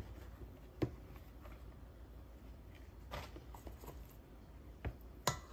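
Quiet kitchen handling as drained pineapple chunks are tipped from a plastic container into a stainless steel mixing bowl, with a few light clicks and taps, the loudest about a second in and near the end.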